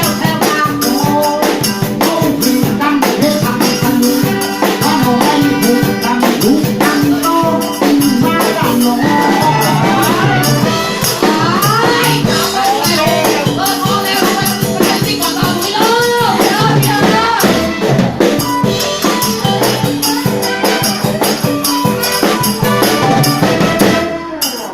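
Live band rehearsing a southern Thai song: drums, a steady shaker rhythm and a singer over the band. The music stops just before the end.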